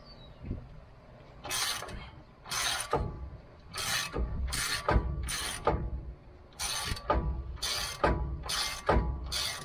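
Hand ratchet wrench clicking in short runs, roughly once a second, as its handle is swung back and forth to loosen the lower ball joint nut on a truck's front steering knuckle.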